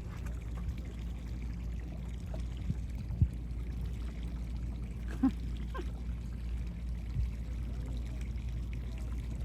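Water trickling and lapping against a small boat's hull over a steady low hum, with two short knocks about three and five seconds in.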